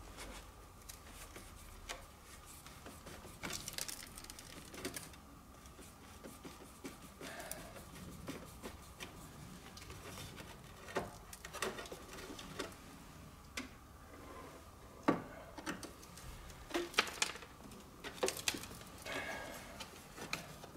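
Screwdriver working the screws out of the top of a classic Mini's dashboard to free a heater demister vent: faint, scattered small metal clicks and scrapes, with a few sharper ticks in the second half.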